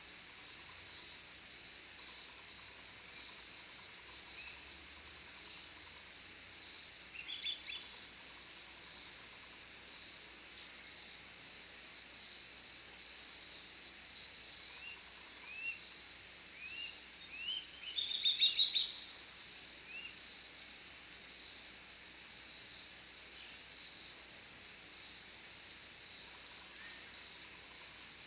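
Insect chorus, crickets trilling in a steady, softly pulsing high drone, with scattered short rising chirps over it and a louder quick run of chirps about two-thirds of the way through.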